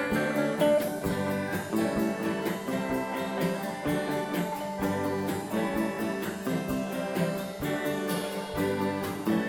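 Background instrumental music: plucked and strummed guitar playing with a steady beat.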